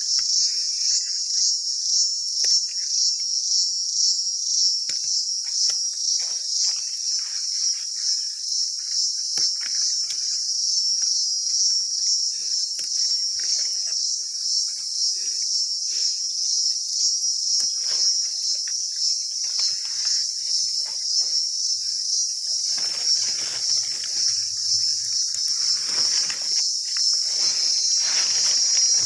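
A loud, steady chorus of insects, one high-pitched, rapidly pulsing buzz. Beneath it come soft rustling and snapping of leaves and stems as chayote vine shoots are handled and picked, busier near the end.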